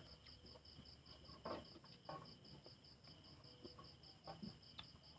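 Faint insect chirping, a steady high trill pulsing about five times a second, over near silence, with a few faint soft clicks.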